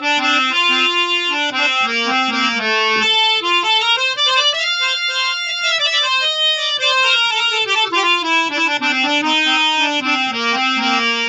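Harmonium with German jubilate male-male reeds being played, notes held against a low drone. Around the middle a melodic line climbs into high notes and comes back down.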